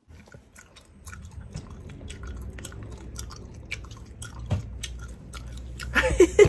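Handling noise of a phone held close to its microphone: many small clicks, taps and rubs from fingers on the phone over a low rumble, growing louder toward the end.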